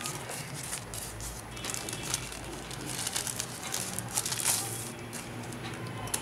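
Thin plastic wrapper crinkling and rustling as a clear phone cover is pulled out of it and handled, in irregular crackles that are busiest about three to four and a half seconds in.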